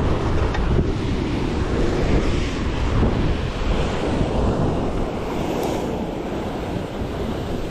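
Sea waves washing against shore rocks, with wind buffeting the microphone in uneven gusts.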